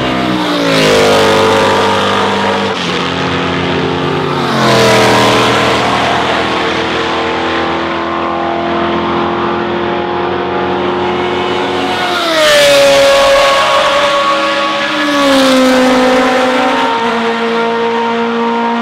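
Historic Can-Am racing cars' engines going by at racing speed, four loud passes about a second, five, twelve and fifteen seconds in, each engine note dropping in pitch as the car goes past and away, with other cars' engines heard between them.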